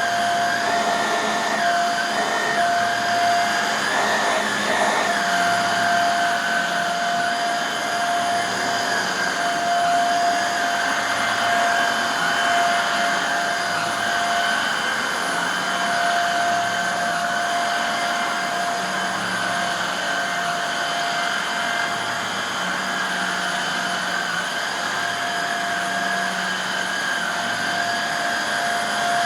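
Hoover Air Steerable upright vacuum cleaner running on its freshly refurbished motor, commutator just polished: a steady high-pitched motor whine. The pitch rises and dips a few times in the first five seconds, then holds steady.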